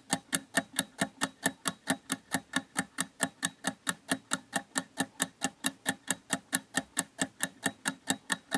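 Clock-ticking sound effect counting down the answer time, a steady run of sharp ticks at about four to five a second.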